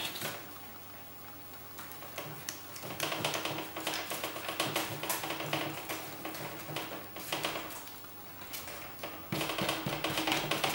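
Glue being worked onto a cardboard card: a quick run of small scratchy taps and scrapes of the applicator against the card, louder near the end.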